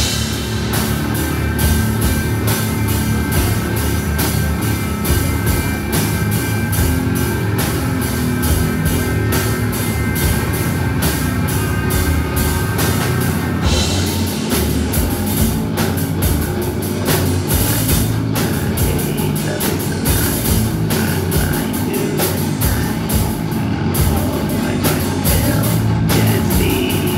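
Live heavy rock band playing: electric guitar, bass guitar and drum kit, loud and continuous, with the arrangement changing about halfway through.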